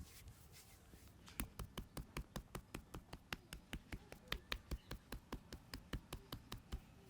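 A barber's hands tapping rapidly on a person's head during an Indian head massage, about five even strikes a second. The tapping starts a little over a second in and stops near the end.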